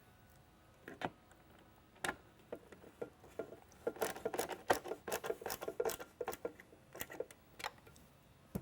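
Phillips-head mounting screws being driven into a strobe minibar's base with a hand screwdriver: scattered clicks and knocks, then a quick run of small clicks and taps through the middle.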